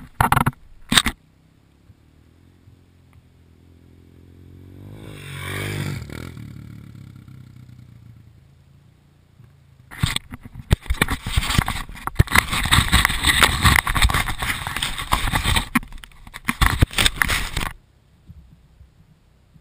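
A dirt bike engine swells as it comes past, its pitch climbing and falling, loudest about six seconds in, then fades away. From about ten seconds in, loud rubbing, crackling and knocking right on the microphone as the ground-mounted camera is handled, stopping sharply a couple of seconds before the end.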